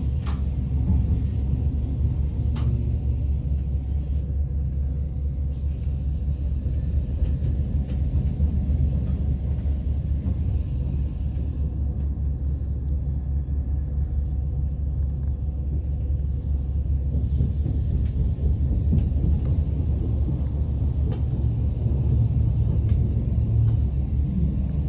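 Steady low rumble of the Bernina Express, a red Rhaetian Railway train, running along the track, heard from inside a passenger carriage.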